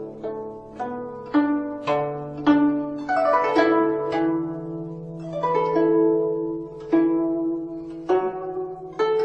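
Background music: plucked-string melody, harp- or zither-like, with sharply attacked notes that ring and fade over a held low note.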